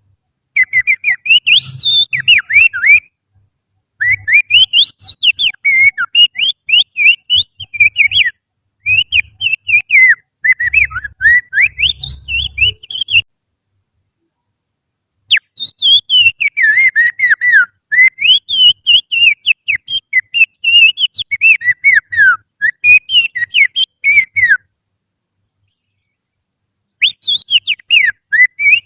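Finger whistling imitating an Oriental magpie-robin's song: phrases of rapid, warbling notes that glide up and down, broken by short pauses about 13 and 25 seconds in. It is a lure call meant to set a caged magpie-robin singing.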